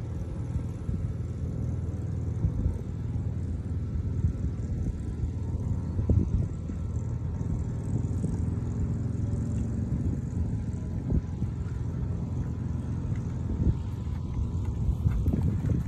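Wind buffeting a phone microphone outdoors: a low, uneven rumble with a few faint knocks.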